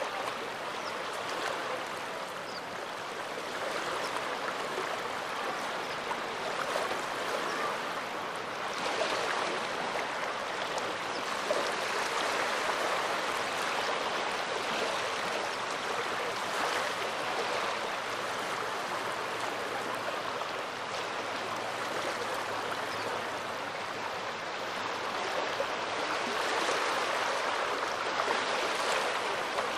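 Small waves of the Gulf of Finland washing onto the shore, a steady wash that swells and eases every few seconds.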